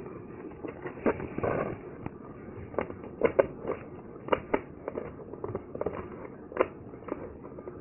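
Small hand screwdriver working a tight screw loose from a cardboard packaging insert: irregular clicks and scrapes of metal on metal. A short rustle of packaging comes about a second and a half in.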